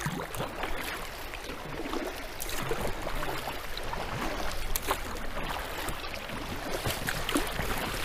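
Kayak paddle strokes splashing and dripping in river water from an inflatable Gumotex Seawave kayak, with irregular small splashes and trickling throughout.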